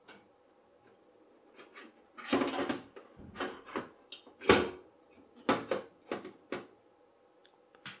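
Handling noise: about ten irregular knocks and clatters as an XT60 connector and its wires are shifted about in a bent sheet-metal holder, with a longer clatter about two seconds in and the loudest knock around the middle.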